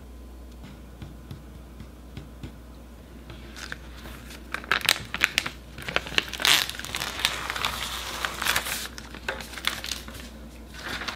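Thin plastic sheet crinkling as it is peeled off a slab of rolled-out cookie dough: a dense run of sharp crinkles starting about a third of the way in, loudest in the middle, with a short flurry again near the end.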